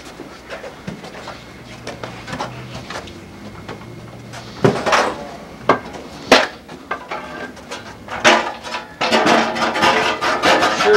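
Several sharp knocks or bangs a second or two apart, then a quick run of clattering knocks near the end.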